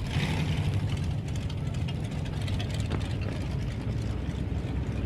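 Drag-racing car engine idling steadily with a rough, low rumble.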